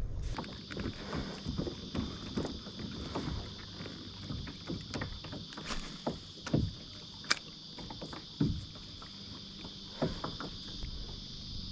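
Knocks, taps and small splashes from a plastic sit-on-top kayak and light fishing gear as a soft-plastic lure is cast and wound back on a small spinning reel, with a few sharper knocks in the second half, over a steady high-pitched buzz.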